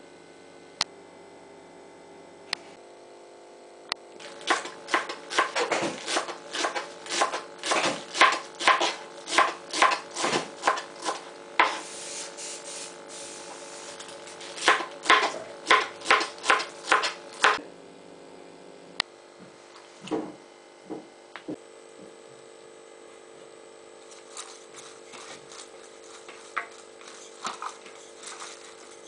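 Kitchen knife chopping cabbage on a plastic cutting board, in two runs of steady chops about two a second. Near the end comes light, quick clicking of a wooden utensil tossing shredded cabbage and wakame in a glass bowl.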